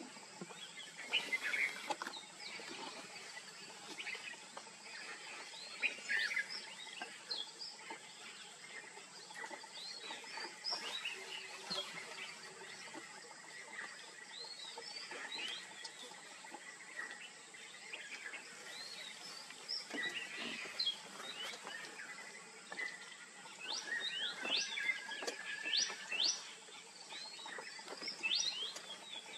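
Wild birds chirping and calling: many short, quick whistles that rise and fall, busier near the end, over a steady outdoor background with a thin, high, constant tone.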